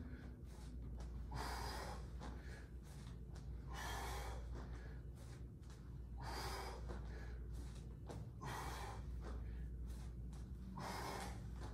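A man breathing hard while doing sit-ups: a sharp, forceful exhale with each rep, about five of them, one every two seconds or so.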